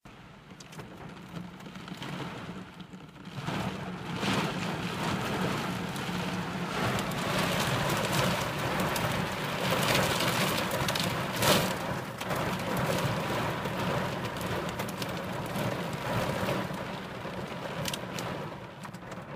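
Heavy rain falling on a car's windshield and roof, heard from inside the car: a dense hiss of drops with scattered sharper hits and a steady low hum underneath. It grows louder about three to four seconds in.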